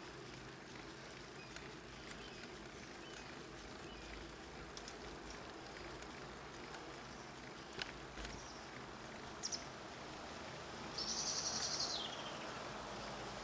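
Faint steady wind and tyre noise from a bicycle rolling along a paved road, with a few short bird chirps and a rapid high trill about eleven seconds in.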